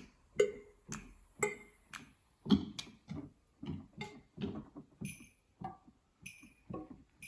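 A MIDI keyboard playing a GarageBand software instrument: a slow run of short single notes, each dying away quickly, about two to three a second.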